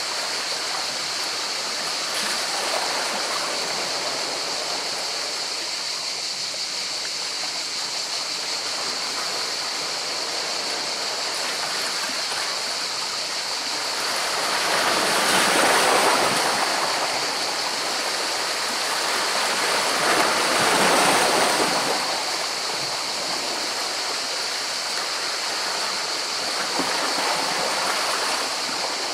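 Sea waves washing in over rocks: a continuous rush of water that swells louder twice, about halfway through and again a few seconds later, over a steady high hiss.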